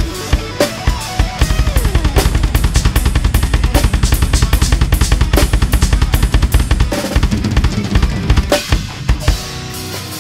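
Rock drum kit played hard in a metal groove: a long run of fast bass drum strokes on double pedals under snare and cymbal hits, loosening into sparser accented hits about seven seconds in.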